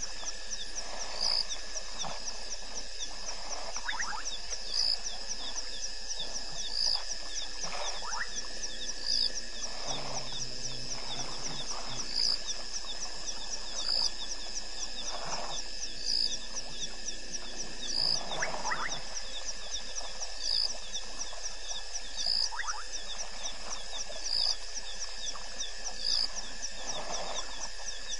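Night chorus of insects: a steady high, fast-pulsing trill, with a sharper high note repeated about every two seconds and a few short rising calls lower down now and then.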